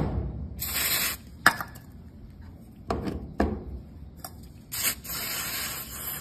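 WD-40 aerosol lubricant sprayed onto a gate motor's worm shaft and bearing: a short hiss about half a second in and a longer one near the end, with a few light metallic clicks between them.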